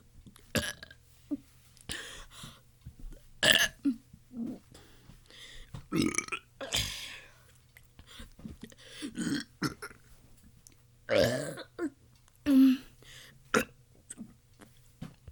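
A person burping over and over: a dozen or more short burps of varying pitch with brief pauses between, a few of them drawn out to about half a second.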